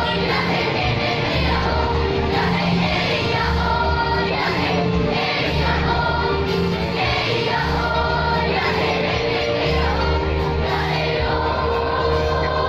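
Children's school choir singing a song together in held, sustained notes, with a low bass line stepping beneath the voices.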